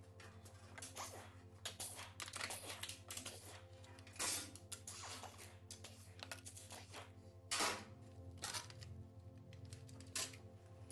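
Irregular clicks and light clatter of hand tools and small metal engine parts being handled during engine disassembly, with a couple of louder knocks about four and seven and a half seconds in, over faint background music.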